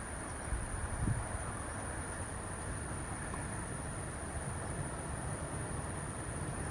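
Steady rushing background noise with a low rumble and a constant thin high-pitched whine; no distinct calls stand out.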